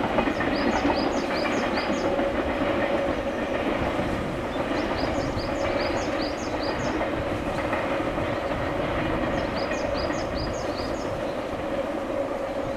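Shinano Railway SR1-series electric train running at the station: a steady rumble with a constant hum, easing off slightly toward the end. A short high chirping phrase repeats about every four to five seconds over it.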